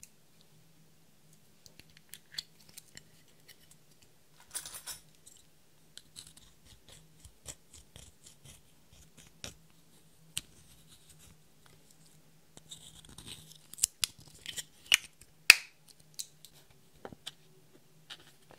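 Fingers scraping and crumbling pressed powder makeup out of a small plastic compact into a glass dish. There are scattered light scratches and soft taps, then a cluster of sharper plastic clicks and knocks near the end.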